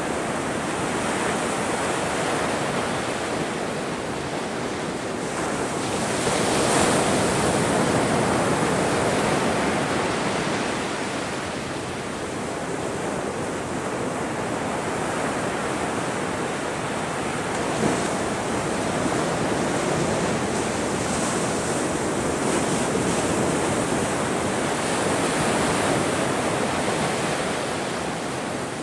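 Ocean surf breaking and washing in continuously, swelling louder for a few seconds at a time as waves come in. A brief sharp crack stands out partway through.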